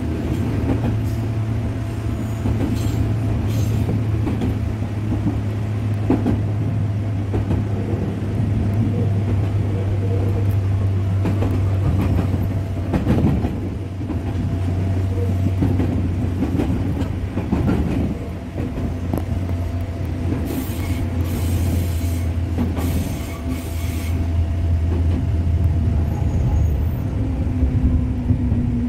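E205-series electric commuter train running, heard from its rear cab: a steady rumble of wheels and running gear with a faint steady whine. About two-thirds of the way in come a few brief high squeals from the wheels on the curving track.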